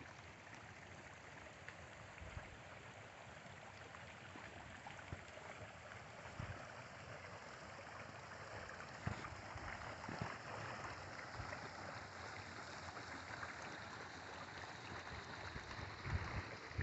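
Creek water trickling from one small pool into another, faint and steady, with a few faint clicks.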